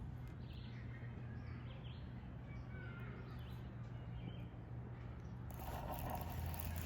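Faint, scattered bird chirps over a steady low hum of outdoor background noise; about five and a half seconds in, a broader hiss comes in.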